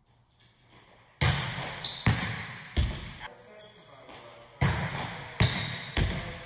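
A volleyball being served and hitting the gym floor: sharp, echoing smacks in two groups of three, each group spread over about a second and a half.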